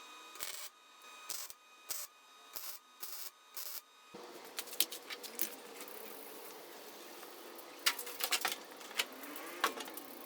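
Metal parts being fitted back into place by hand: about six short rasping bursts in the first four seconds, then scattered sharp metallic clicks and clanks.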